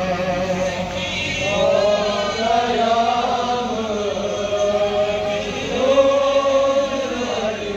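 Men chanting a Kashmiri noha, a Shia mourning lament, in long held, wavering notes: a lead reciter on a microphone with a crowd of men's voices chanting along.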